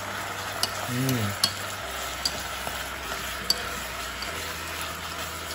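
Fish cake cubes sizzling in a thick sweet-and-sour sauce in a saucepan as they are stirred with a wooden utensil. A few light clicks of the utensil against the pan come through the steady sizzle.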